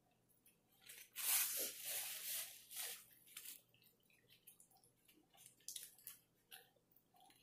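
A person eating barbecue close to the microphone: a loud wet bite about a second in that lasts a couple of seconds, then quieter chewing with short lip-smacking clicks.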